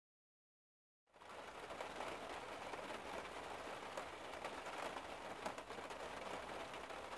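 Dead silence for about a second, then a faint, even hiss with scattered small crackles and ticks.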